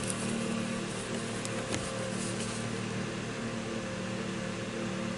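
Steady low background hum with a few faint clicks about one and a half seconds in.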